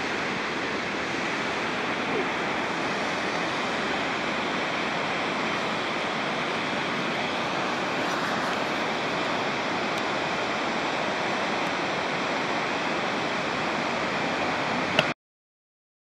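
Steady rushing outdoor noise, even and unbroken, with a faint steady high note above it; it cuts off suddenly with a click near the end.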